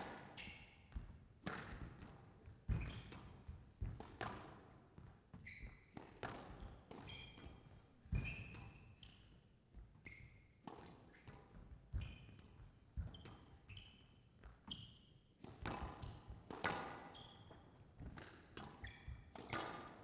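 A squash rally: the ball struck by rackets and hitting the court walls in sharp cracks about every second, with short high squeaks from the players' shoes on the court floor.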